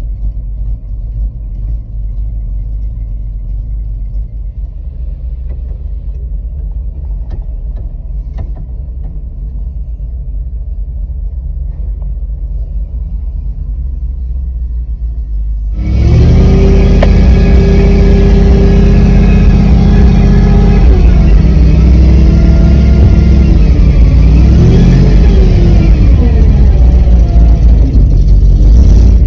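Big farm truck's engine running, heard from inside the cab: a low steady rumble, then about sixteen seconds in a sudden much louder stretch of driving, with the engine's pitch rising and falling as it accelerates.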